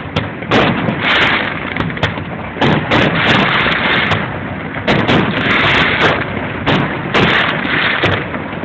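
Fireworks display: a string of sharp bangs from bursting shells, irregularly spaced and sometimes two close together, over a continuous noisy wash.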